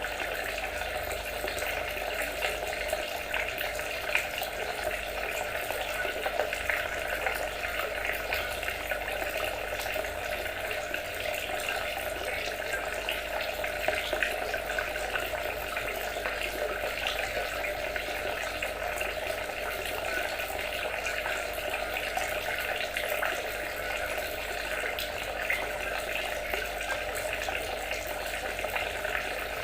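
Water trickling and splashing steadily, with small irregular plinks throughout.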